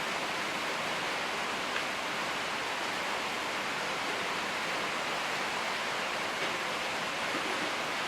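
Steady, even hiss of background noise, with one faint tick about two seconds in.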